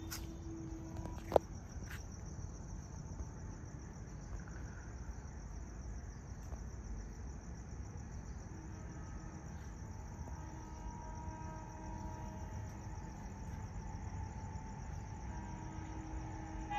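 Crickets trilling steadily at night over a low background rumble, with one sharp click about a second in.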